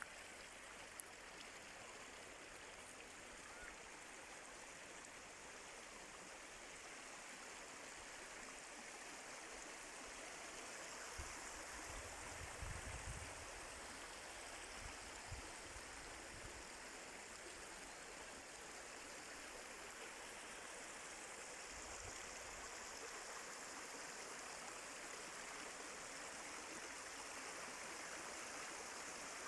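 Water running steadily in a stream, a faint even rushing. Brief low rumbles come twice, about a third of the way in and again two-thirds in.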